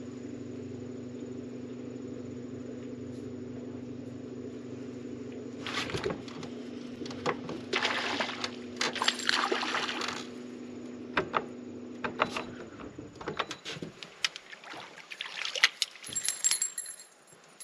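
Electric trolling motor humming steadily, shutting off about two-thirds of the way through. Splashing at the water's surface from about six to ten seconds in, then scattered sharp clicks near the end.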